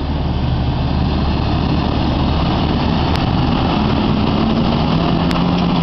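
Jeep engines running in a steady drone as a Jeep Wrangler drives through a mud pit, the pitch rising slightly about four seconds in.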